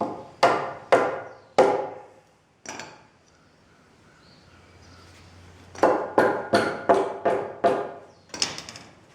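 Hammer striking wood: a few blows, a pause, then a quick run of about eight blows at roughly three a second.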